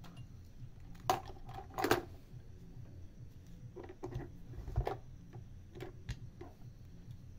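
Handling noises: a scatter of light knocks and clicks as multimeter test probes and a small circuit board are put down and moved about, the sharpest pair about one and two seconds in and a few more from about four to six seconds.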